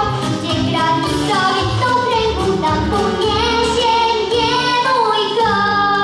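A young girl singing a song into a microphone over a recorded backing track, heard through the stage PA.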